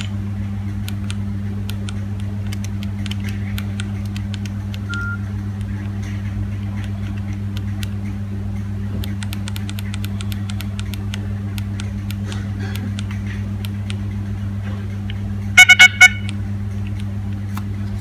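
Nokia 3530 ringtone previews while the ringtone list is being scrolled: faint keypad clicks and a single short beep over a steady low hum, then a ringtone preview starts loudly near the end and is cut off after under a second.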